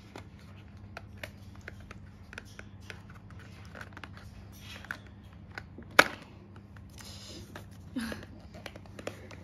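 Hands handling and opening a small white cardboard box: light scraping and tapping of the card, with one sharp click about six seconds in.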